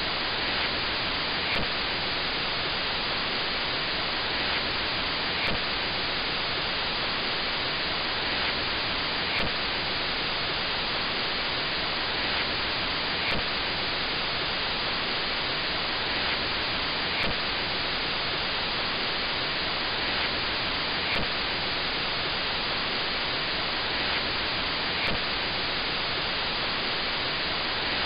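Steady hiss of analogue TV static, with a faint click about every four seconds.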